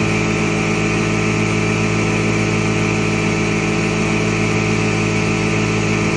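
A motor-driven workshop machine running at a steady speed, a constant hum with an even hiss over it.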